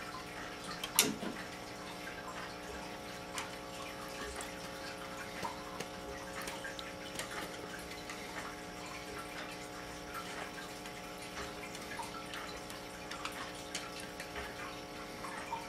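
Steady hum made of several held tones, under a faint hiss with scattered light ticks and clicks. One sharper click comes about a second in.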